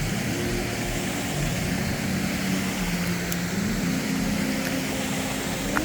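Steady rushing of river water and waterfalls, with a low drone over it that holds one pitch for a second or two and then slides to another.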